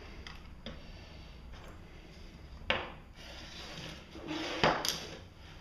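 Hands moving a small mower alternator and metal combination wrenches about on a wooden workbench: light rubbing and scraping, a sharp knock about two and a half seconds in, and a louder scrape with a clack near the end.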